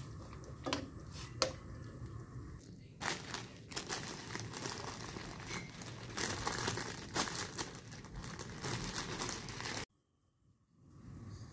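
Thin clear plastic bag crinkling and rustling for several seconds as a hand handles a packet of noodles, breaking off suddenly near the end. Two sharp knocks sound about a second in.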